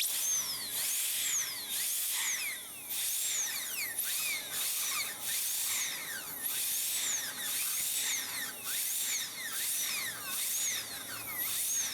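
High-speed dental drill cutting out an old amalgam filling: a high whine that rises and falls in pitch over and over, about once a second, as the bur bears into the metal and eases off, over a hiss of water spray and suction.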